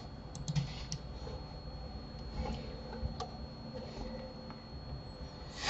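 A few faint, sharp clicks of a computer mouse and keyboard over low room noise, with a faint steady high-pitched whine underneath.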